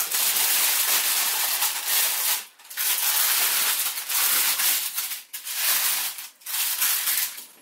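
Baking parchment crinkling and rustling as it is pulled and folded back from a baked loaf. It comes in four long stretches with brief pauses between them.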